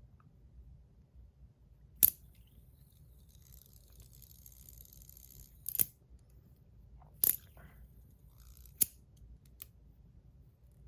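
Stainless steel KTS Blood Blade fidget spinner being hand-spun, with four sharp metallic clicks spread over several seconds and a faint high whir between the first two.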